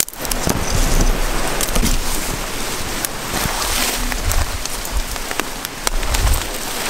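Dry brush and branches crackling and snapping as people push through dense scrub, a dense patter of small clicks, with jacket fabric rubbing against the camera microphone and a few low handling thumps.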